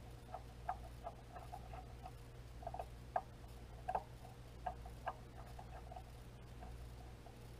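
Faint, irregular small clicks of a small hand driver turning the mounting screws of a red-dot sight base down into a pistol slide, over a low steady hum.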